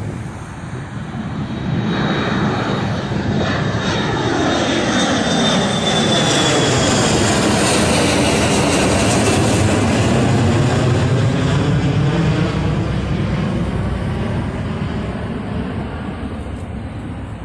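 Twin-engine jet airliner passing low overhead, its engine noise building to a peak in the middle and then fading as it moves away. A high fan whine drops in pitch as it approaches.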